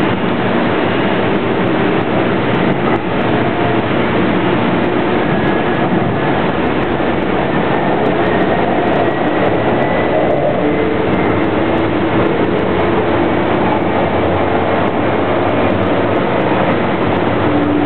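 Steady running noise of a moving passenger train heard from inside the car: a dense rumble and rush of wheels on rail. A faint whine rises slightly in pitch through the middle.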